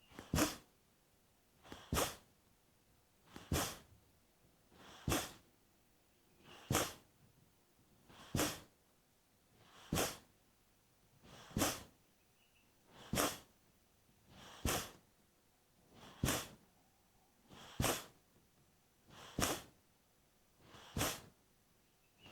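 Kapalbhati breathing through the left nostril: a steady series of short, forceful nasal exhalations driven by abdominal pumping, about one every second and a half, each with a softer passive inhale just before it.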